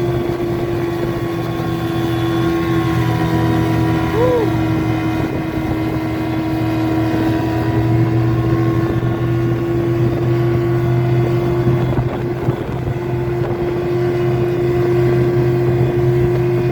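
Hidea 25 hp outboard motor running steadily at a constant speed, its pitch holding level throughout.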